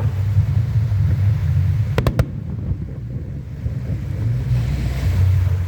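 Fireworks going off: three sharp bangs in quick succession about two seconds in, over a steady low rumble.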